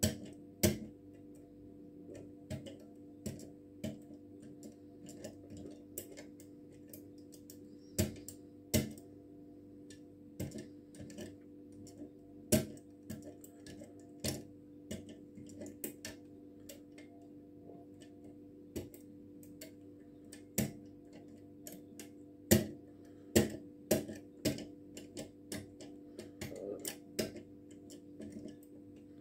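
Irregular metallic clicks and ticks from a hook pick lifting the steel levers inside a lever mortise lock, under light tension from a brass tension tool in the keyhole. This is lever-by-lever picking. A steady low hum runs underneath.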